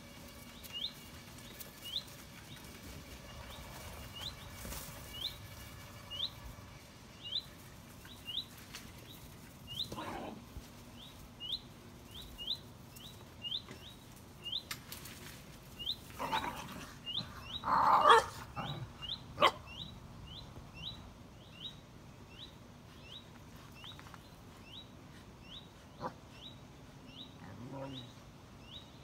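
Two basenjis making short, scattered vocal sounds, with a loud burst about two-thirds of the way through and a lower sound near the end. A bird chirps over and over behind them, a short high note about once a second.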